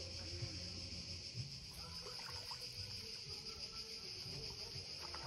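Insects chirring steadily in one continuous high-pitched drone.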